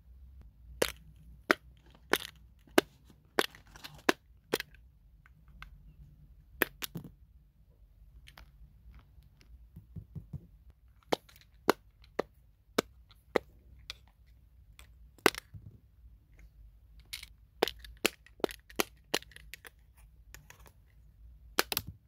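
Single-bubble silicone pop-it fidget keychains being pressed, each press a sharp pop, coming in irregular runs of several with short pauses between.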